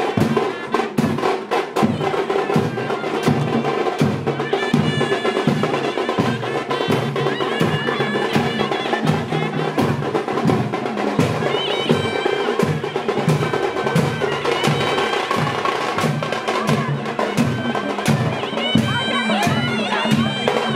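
Live folk procession music: drums beating a steady, fast rhythm, about two to three strokes a second, with a high wind instrument playing a melody above them.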